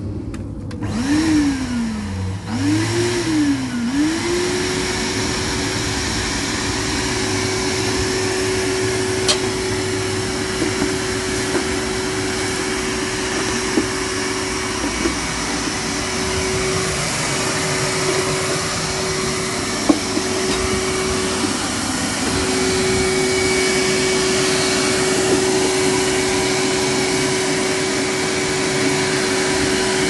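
Numatic tub vacuum cleaner motor switched on and off twice in quick succession, its whine rising and falling each time, then left running with a steady whine.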